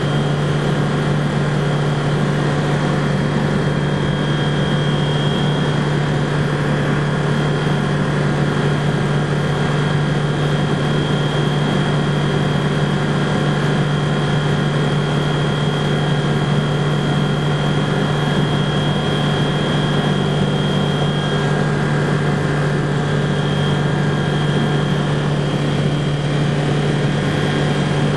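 Rotax 912 four-cylinder engine and propeller of a BushCaddy R-80 ultralight floatplane running steadily in level flight, heard from inside the cockpit as an unchanging drone with a thin, steady high whine above it.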